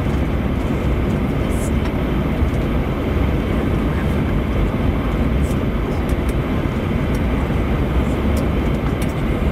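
Cabin noise of an Airbus A321 taxiing, its CFM56-5B engines at idle thrust: a steady low rumble and hiss heard from inside the cabin near the wing, with a few faint clicks.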